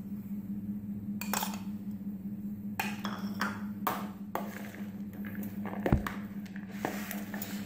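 Kitchen utensils knocking and clinking against a bowl in scattered separate strikes, one duller thump among them, as chopped onion is added to a chickpea and potato mix, over a steady low hum.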